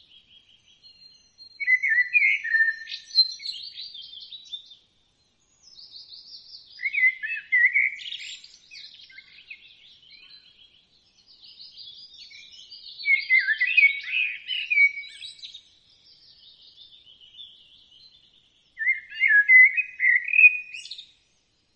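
Common blackbird singing: four louder fluting phrases a few seconds apart, with softer twittering in between.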